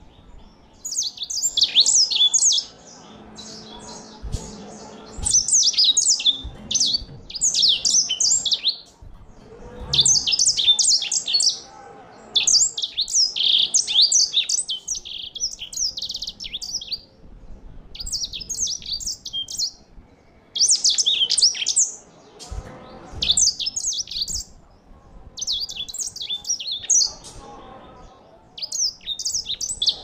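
Grey singing finch (white-rumped seedeater) singing: a string of song phrases of fast, high notes, each one to two seconds long with short pauses between.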